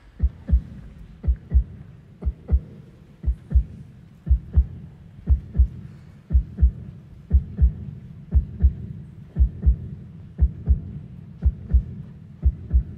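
Heartbeat sound effect: deep double thumps, about one beat a second, over a steady low drone.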